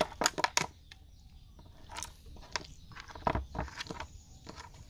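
Irregular wet slaps and taps of live gobies flopping in a little water in a plastic basin while a hand picks through them, with a few sharper clicks against the plastic.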